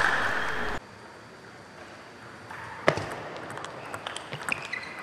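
Table tennis rally: a sharp crack of the ball off a paddle about three seconds in, then a quicker run of lighter clicks as the ball strikes paddles and table. Before that, a loud burst of noise cuts off abruptly under a second in.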